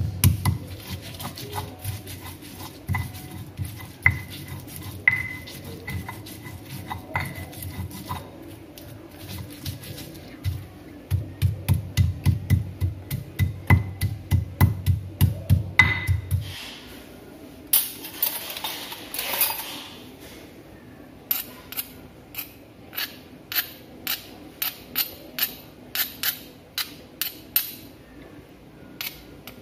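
Stone pestle pounding and grinding wet spice paste in a stone mortar. Dull thuds quicken to a steady three or so strokes a second around the middle, then come a scraping rush and sharper clicking knocks in the last third.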